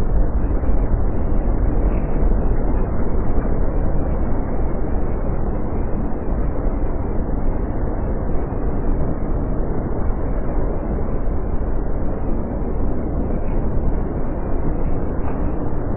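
Airbus A321 jet engines at takeoff power on a wet runway: a steady, low rumble that holds throughout.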